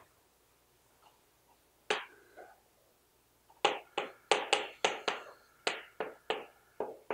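Chalk striking and tapping on a blackboard as letters are written. One stroke comes about two seconds in, then a quick run of sharp taps, roughly three a second, from about halfway through.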